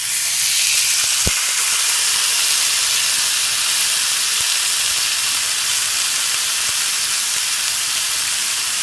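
Marinated steak sizzling loudly and steadily on a hot grill pan, with one sharp click about a second in.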